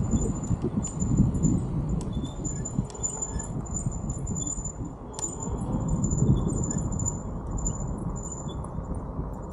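Low rumble of wind on the microphone and tyres rolling over a gravel road as a bike rides along, with scattered small clicks and rattles. A faint high-pitched steady tone comes and goes above it.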